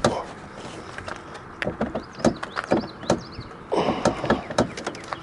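Scattered light clicks and taps of a hand feeling along the front of a car's hood for the hood release, with a denser patch of handling noise about four seconds in.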